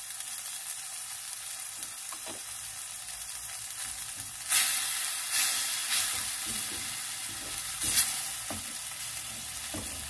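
Tomato and spice sauce base sizzling in a clay pan while a wooden spatula stirs and scrapes through it. The sizzle swells louder a few times in the second half as the sauce is stirred.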